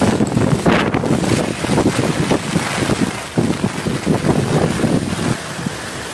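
Cyclone-force wind gusting hard against the microphone in loud, uneven surges, easing to a steadier rush near the end.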